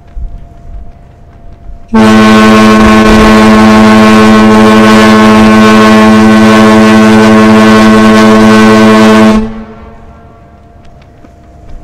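A ferry's steam-style ship whistle sounds one loud, steady, long blast of about seven and a half seconds, then cuts off. It is the prolonged fog signal that a ship under way gives in fog.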